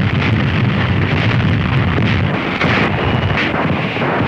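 Battle sounds on an old newsreel soundtrack during a tank clash: a continuous low rumble shot through with many rapid cracks of gunfire and blasts.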